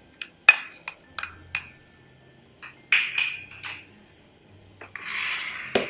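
A spoon clinking and tapping against a bowl and pot several times in quick strokes, each with a short ring, as ingredients are knocked into a pot of boiling water. Near the end there is a brief rush of noise and then a knock.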